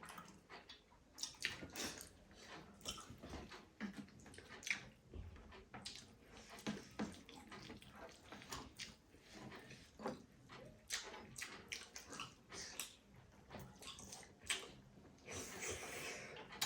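People eating spicy noodles and momos: wet chewing and slurping, with many small irregular clicks.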